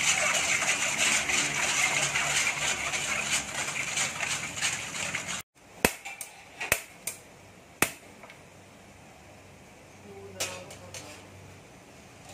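A metal spoon stirs and scrapes a soy sauce mixture against a stainless steel bowl, a steady busy scraping that stops abruptly about five seconds in. It is followed by a few sharp clinks of a metal wok spatula against an empty steel wok.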